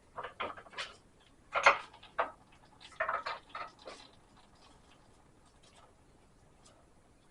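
Irregular clicking and knocking from the GM 8.5 differential's pinion being turned and handled by hand, with a sharp knock about two seconds in; the clicking stops after about four seconds. The pinion bearings are noisy.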